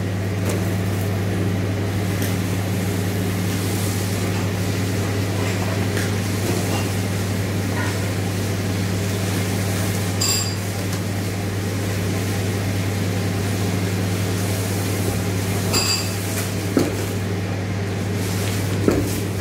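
Steady low electrical hum of kitchen equipment, with a few short crackles and clicks as cling film is stretched and rolled tightly around a beef tenderloin.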